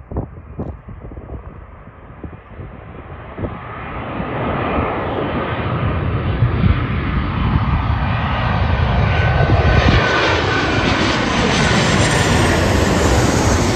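Twin-engine jet airliner on landing approach, its engine noise swelling as it nears and passes low overhead. The engine whine falls in pitch during the last few seconds.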